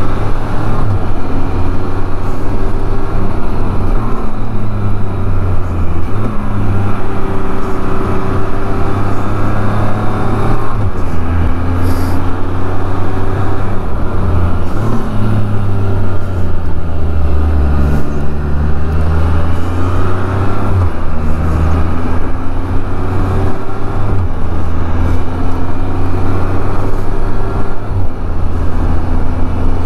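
Can-Am Spyder three-wheeler's engine running on the move, its pitch rising and falling several times as the throttle and gears change, over a steady low rush of wind and road noise.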